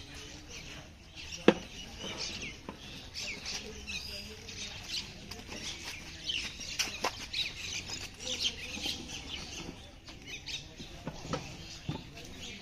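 Small birds chirping repeatedly in short high calls, with one sharp knock about a second and a half in and a few fainter knocks later.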